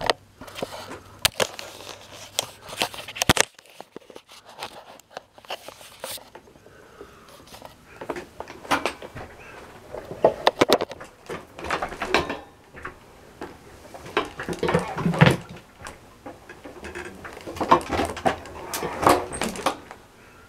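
Scattered knocks, clicks and rustles of handling and movement, with a dense run of clicks in the first few seconds as the phone camera is handled and set in place, and a low hum that stops about three seconds in.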